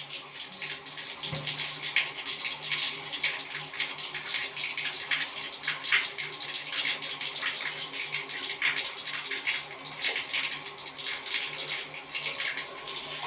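Water running from a tap and splashing unevenly as hands are washed under it.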